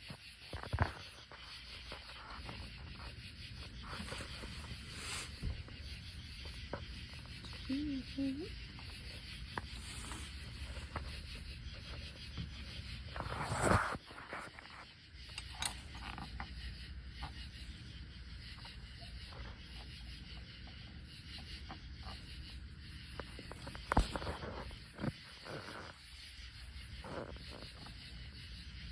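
Hand and tool sounds from working under a car at its oil drain plug: scattered clicks, scrapes and rubbing over a steady low hiss, with a louder knock about 14 seconds in and a sharp knock about 24 seconds in.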